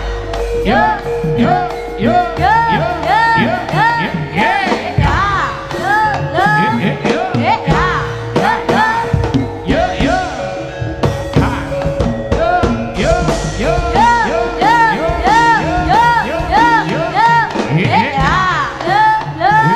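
Jaranan gamelan music: a slompret reed pipe plays a melody of bending, arching notes over drums and gamelan, with a held tone underneath.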